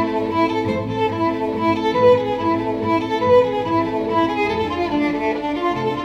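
Classical background music led by violin, moving in a quick, even run of short notes.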